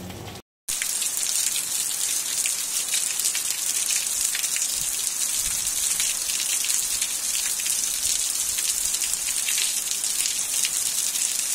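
Heavy rain falling steadily onto bare ground: a dense hiss thick with small drop impacts. It starts just after a brief break near the beginning.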